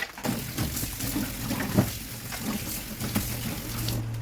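Water running steadily from a tap, starting just after the beginning and stopping shortly before the end, with a few light knocks of things being handled under it.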